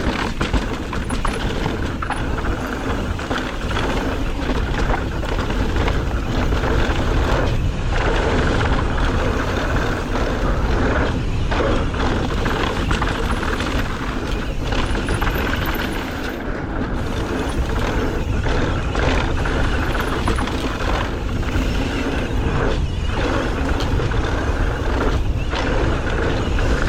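A mountain bike descending a dirt trail: wind rushing over the microphone with a heavy rumble, tyres rolling on dirt, and the bike knocking over bumps.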